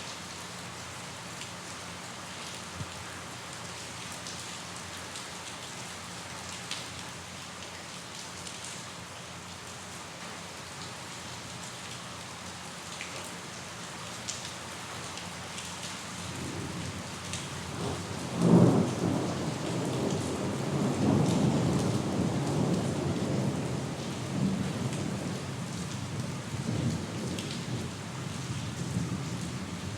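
Steady rain falling, with scattered individual drops. A little past halfway a low rumble of thunder builds to a sharp clap, then rolls on and slowly fades near the end.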